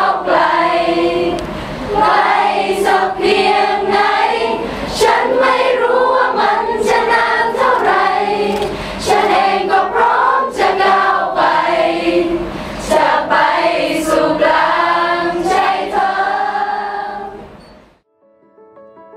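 A large group of young singers, mostly women, singing together as a choir. The singing fades out about seventeen seconds in.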